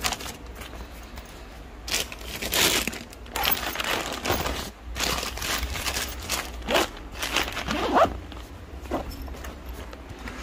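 Plastic bag crinkling and a nylon backpack rustling as they are handled and packed, in a run of irregular bursts.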